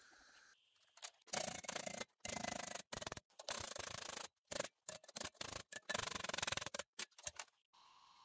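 A hammer beating a laser-welded 2 mm stainless steel test piece clamped in a bench vise, bending it to test the weld's strength. The rapid metal-on-metal strikes come in choppy bursts of about a second that start and stop abruptly, beginning about a second in.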